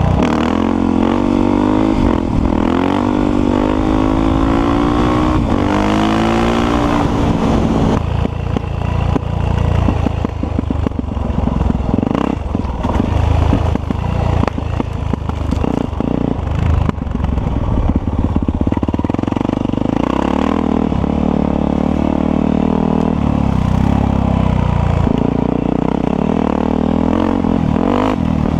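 Yamaha WR450F's 450 cc single-cylinder four-stroke engine under way, with the revs climbing again and again in the first several seconds as it pulls up through the gears. Then it runs at varying throttle with many short knocks and rattles over a rough dirt trail, settling into a steadier pull near the end.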